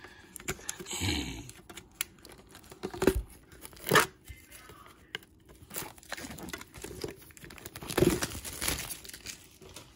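Plastic shrink-wrap being torn and peeled off a Pokémon collector's tin, crinkling, with sharper rips about three, four and eight seconds in.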